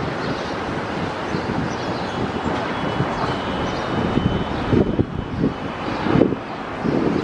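Boeing 737-800's CFM56-7B jet engines running at taxi power as the airliner taxis and turns, with a faint steady whine mid-way. Gusts of wind buffet the microphone in the second half.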